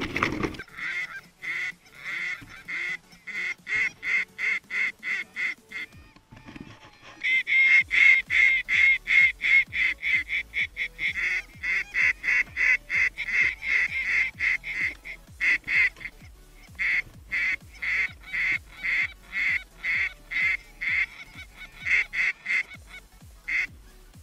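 Canada geese honking: a long string of short honks, about three a second, pausing briefly about six seconds in, then louder and denser for a few seconds before settling back to a steady run.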